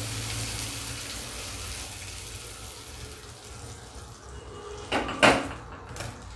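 Hot tempering oil with mustard seeds, dal, curry leaves and dried red chillies sizzling as it is poured onto peanut chutney in a steel bowl, the sizzle dying away over several seconds. A few sharp knocks about five seconds in.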